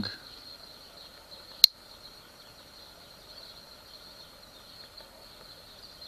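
A single sharp click about one and a half seconds in as the main blade of a Victorinox Swiss Army soldier knife with alox scales snaps open against its backspring, over a faint steady high-pitched whine.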